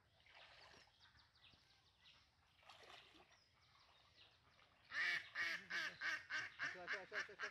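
Domestic waterfowl on the pond calling in a loud, rapid run of honks, about five calls a second, starting about five seconds in.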